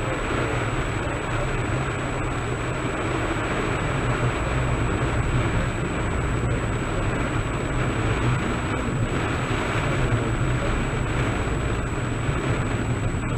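A car driving steadily, with a constant low engine and road rumble and the hiss of tyres on a wet road in typhoon weather.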